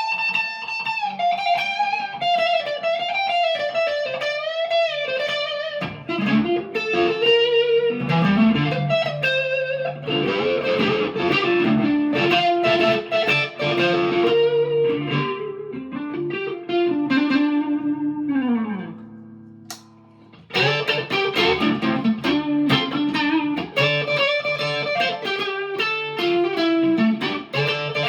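PRS McCarty 594 Hollowbody II electric guitar played through a Marshall DSL40C amp: melodic single-note lines with string bends and a long downward slide, a brief pause about twenty seconds in, then the playing picks up again.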